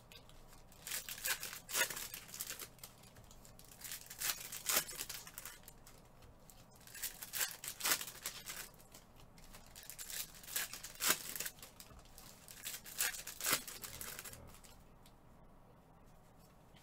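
Foil trading card packs of Prizm basketball cards being torn open and their wrappers crinkled, in short bursts about every three seconds, then quieter near the end.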